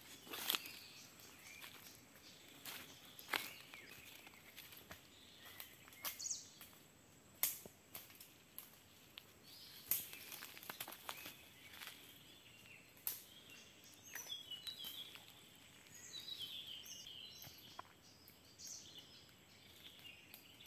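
Faint crunching and crackling of footsteps on dry bamboo leaf litter, scattered sharp clicks through the whole stretch, with faint bird chirps about two thirds of the way through.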